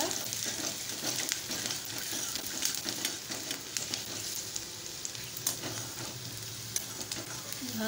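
Chopped onion sizzling steadily as it fries in hot oil over a high gas flame in an aluminium kadai. A spoon stirring through it gives scattered scrapes and light clicks against the pan.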